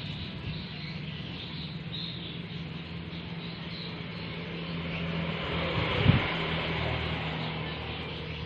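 Outdoor background with a steady low engine-like hum, as of a distant motor, and a high hiss that swells for a few seconds past the middle. A short low thump comes about six seconds in.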